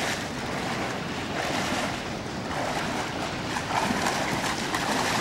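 A person wading through knee-deep creek water, legs sloshing and splashing, with a surge of splashing at each stride.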